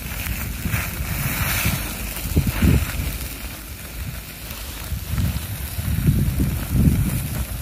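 Wind buffeting the microphone outdoors: an uneven, gusting low rumble.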